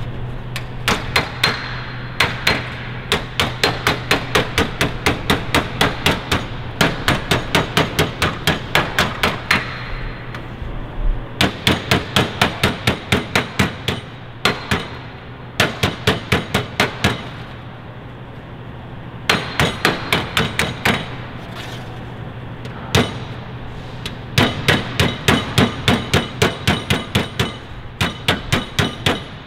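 Mallet blows on the edge of a sheet-aluminium aircraft skin panel held against a metal block, shaping the panel. The blows come quickly, about four a second, in runs of a few seconds broken by short pauses.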